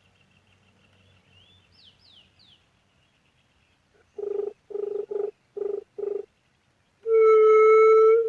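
Low hooting juriti dove calls: five short hoots in a row starting about four seconds in, then one long, loud, steady hoot near the end. Faint birdsong chirps in the background at the start.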